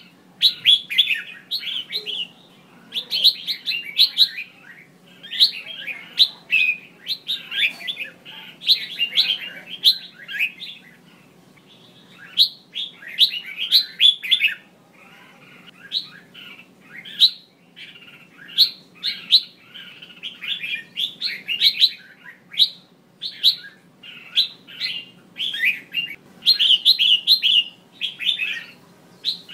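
Female red-whiskered bulbul calling in bursts of quick chattering notes every second or two, with a few short lulls. This is the kind of call played to stir male bulbuls into singing.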